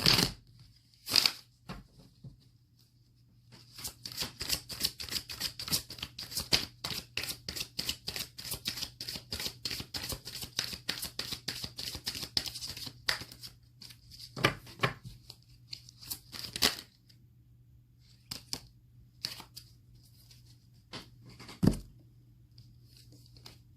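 Oracle deck cards being shuffled by hand: a quick, even run of about five card flicks a second lasting roughly ten seconds, followed by a few separate card snaps and taps, one sharp one near the end.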